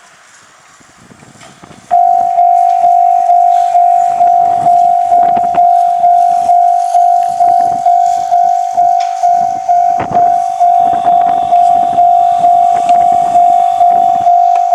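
Japanese level-crossing warning alarm starting about two seconds in and ringing a repeated single-pitched ding, a little over twice a second, each ding fading before the next. The clanging is loud.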